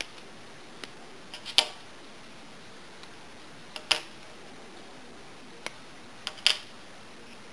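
Plastic kit wheels and hubs being snapped off their moulded frames: about eight short, sharp plastic clicks and snaps, spaced irregularly.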